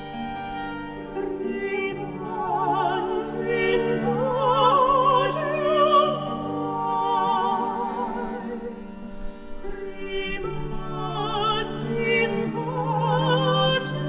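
A high classical voice singing an early Italian song with strong vibrato over sustained bowed strings.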